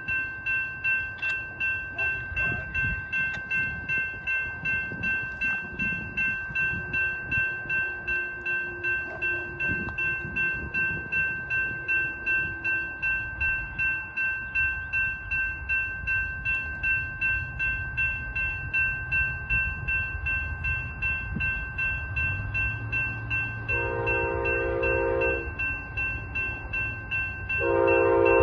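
A bell dings steadily about twice a second while an approaching diesel locomotive's air horn sounds, a short blast about four-fifths of the way through and a longer one starting just before the end, over the train's growing rumble.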